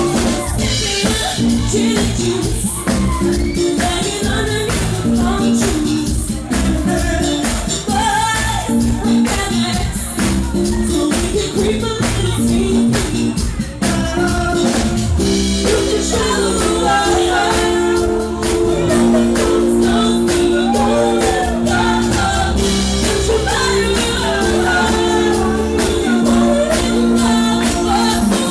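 Live cover band playing a dance song with a steady beat: drum kit, bass guitar, keyboard chords and lead singing.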